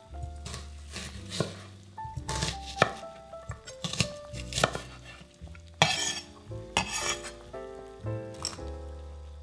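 Chef's knife slicing through an onion onto a wooden cutting board: irregular crisp cuts, about two a second, with a louder, longer stroke about six seconds in. Soft background music with sustained notes plays underneath.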